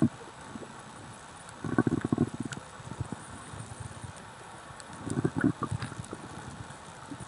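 Underwater sound of a snorkeler breathing through a snorkel: two rough, rasping breaths about three and a half seconds apart, over a faint steady hiss with scattered small clicks.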